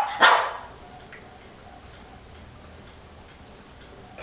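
A Shih Tzu gives a single short bark just after the start, the last of a run of barks counting out its answer to a sum. It is followed by low room tone.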